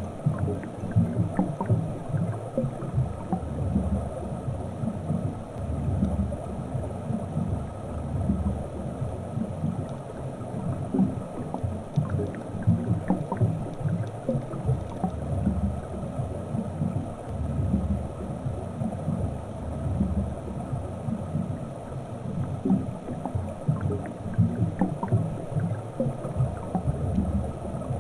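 Underwater ambience picked up by a submerged camera in a shallow lake: an uneven low rumble of moving water with scattered faint ticks.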